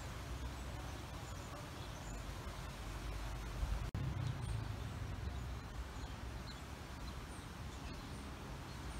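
Outdoor ambience: wind rumbling on the microphone, with faint, short bird chirps now and then. A brief dropout about four seconds in.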